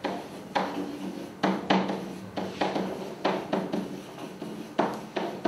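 Pen or stylus knocking and rubbing against an interactive whiteboard while writing: a string of irregular short knocks, roughly two a second.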